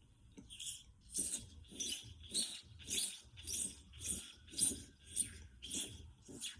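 A man's vocal imitation of a bird call into a microphone: a steady run of short, high chirps, just under two a second.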